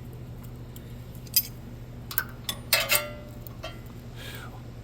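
A few light metallic clinks and taps of hand tools (wrenches and a feeler gauge) at the valve rocker of a HISUN 6.5 hp small engine while its valve clearance is being set. The loudest is a ringing clink about three seconds in. A steady low hum sits underneath.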